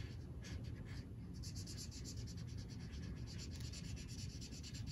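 Felt-tip marker scratching on paper as a small shape is coloured in: a few scattered strokes, then from about a second in quick, even back-and-forth strokes.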